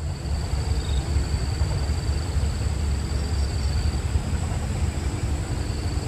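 A steady low rumble with a continuous high insect drone over it.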